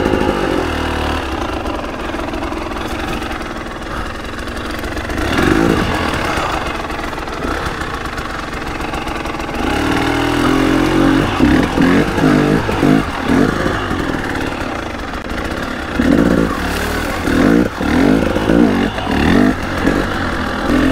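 KTM EXC 300 two-stroke enduro motorcycle being ridden, its engine revving up and down. It rises once about five seconds in, then goes through a run of quick throttle openings and closings in the second half.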